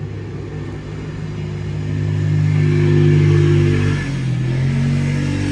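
A motor vehicle engine running steadily, getting louder over the first few seconds, then dropping to a lower pitch about four seconds in.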